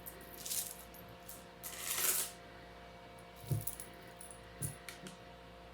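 Small metal jewelry pieces clinking and jangling as they are handled, with two soft knocks around the middle.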